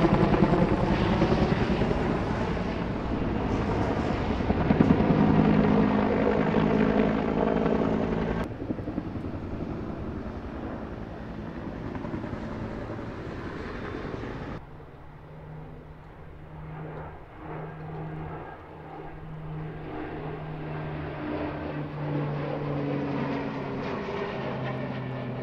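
Firefighting helicopter flying overhead, its rotor chop loud for the first several seconds. After two abrupt cuts it gives way to a steadier, quieter drone of an air tanker's propeller engines, with a low hum.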